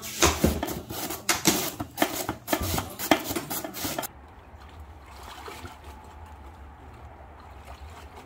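Korean radish being shredded on wooden mandoline slicers into a steel bowl: quick rasping strokes, about three a second. They cut off suddenly about four seconds in, leaving only a quieter steady low hum.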